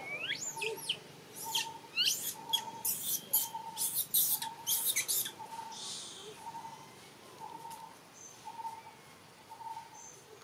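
Baby macaque screaming in a series of shrill, rising and falling cries that stop about five seconds in: the distress cries of an infant being weaned, begging to nurse. A short note repeats steadily in the background, about one and a half times a second.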